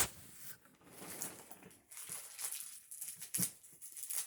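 Toy packaging rustling and crinkling in irregular spurts, with a few light knocks, as the toy's flippers are worked loose from the box.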